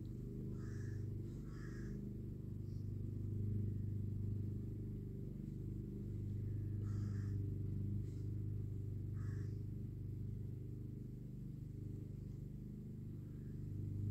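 Steady low drone of distant lawn mowers, with a few faint short hisses.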